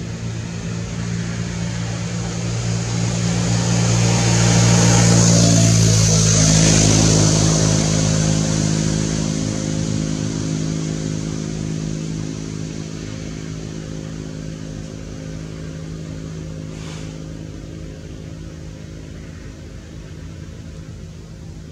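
A motor vehicle engine passing by, growing louder to its peak about five seconds in, shifting in pitch as it goes past, then slowly fading away.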